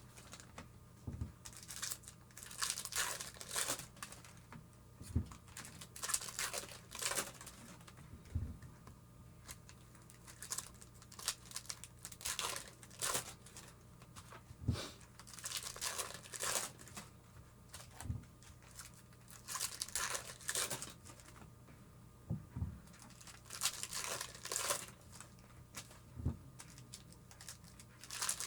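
Foil wrappers of baseball card packs being torn open and crinkled in bursts, with a soft low thump every few seconds.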